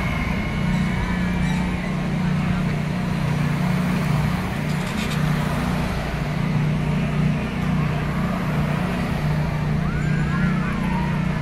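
Steady low drone of road traffic, with cars and a pickup truck passing close by, and faint distant voices rising near the end.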